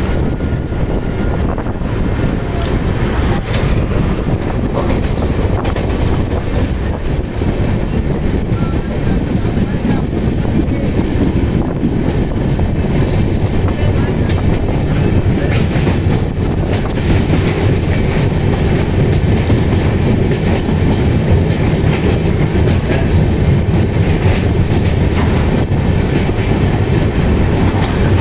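Passenger train running, heard from aboard beside the coach: a steady rumble of wheels on the rails with a clickety-clack over the rail joints.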